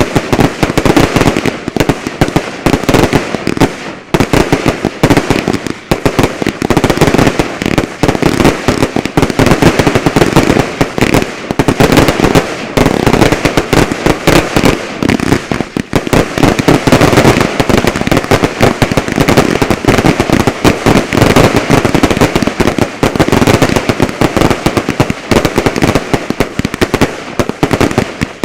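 Fireworks finale: a dense, continuous barrage of shells and mortar reports going off in rapid succession, one bang overlapping the next with no pauses.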